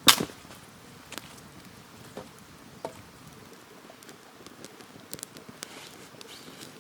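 Wood campfire crackling: irregular sharp pops and ticks over a faint hiss, with one loud crack right at the start.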